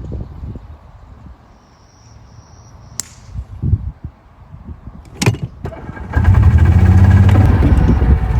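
A golf cart's engine starts about six seconds in and runs loudly and steadily. Before that, low rumble and a sharp crack about three seconds in.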